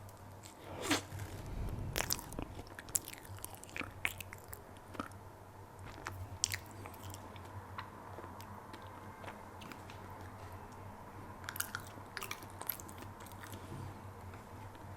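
Close-miked chewing of bread: a bite about a second in, then wet mouth sounds with scattered crisp crunches and clicks, and a short cluster of them near the end.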